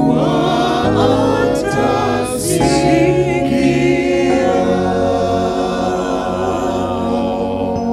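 Small church choir of men's and women's voices singing a gospel song in harmony through microphones.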